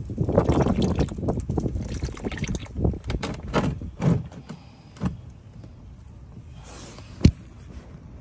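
Used engine oil draining in a thick stream from the oil pan and splashing into a drain pan, loud and uneven for the first five seconds or so, then quieter. A single sharp click near the end.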